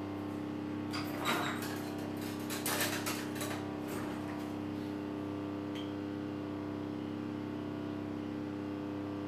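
A kitchen drawer sliding open and cutlery clattering inside it as a spoon is picked out, for about three seconds, over a steady low hum.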